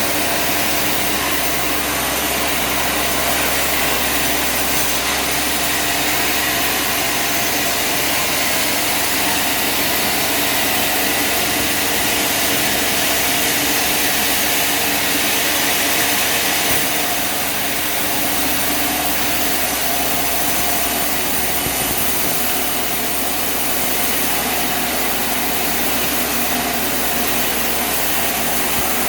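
Bandsaw sawmill running steadily: an engine note under a broad hiss, easing slightly about seventeen seconds in.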